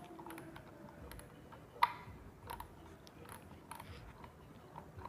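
Faint, irregular clicks and taps from a large spinning fishing reel being handled and opened up to show its power handle, with one sharper click about two seconds in.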